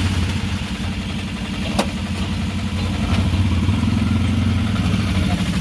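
Auto-rickshaw (tuk-tuk) engine running steadily with a low, even throb, heard from inside the cab. A single sharp click comes a little under two seconds in.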